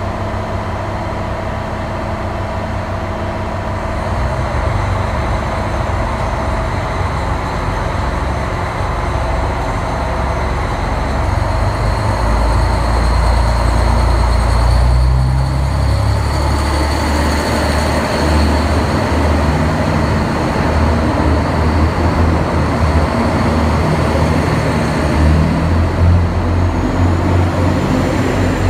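JR Hokkaido KiHa 183 series diesel express train running its engines as it moves along the platform. It makes a steady low rumble that grows louder about twelve seconds in.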